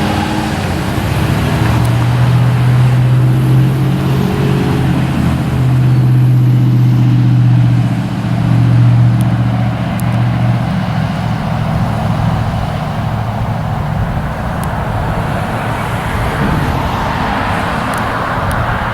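An engine's steady low drone with a strong hum and overtones, loudest in the middle and then fading, while a rushing noise builds near the end.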